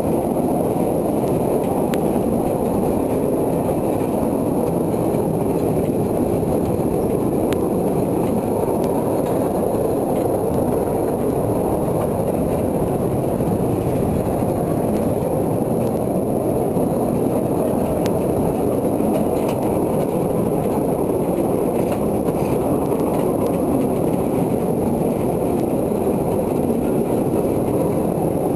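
Narrow-gauge railway wagon rolling along the track: a steady, loud rumble of wheels on rails, with a few sharp clicks.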